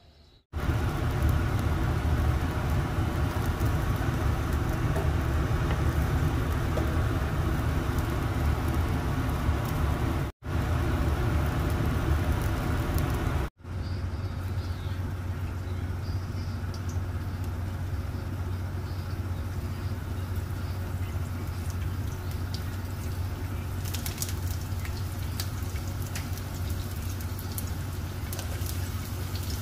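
Steady low rumble, cut off briefly twice. Near the end, light crackling as chopped garlic and red onion start to sizzle in hot oil in a frying pan.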